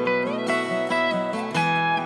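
Background music: a plucked acoustic guitar melody, with some notes sliding up in pitch.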